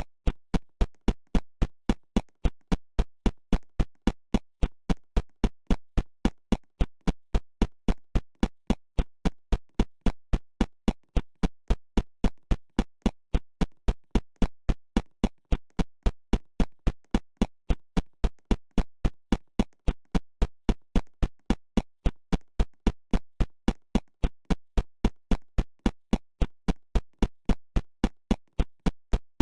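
A steady electronic beat: one sharp drum-machine hit repeating evenly about three times a second, with no other instruments.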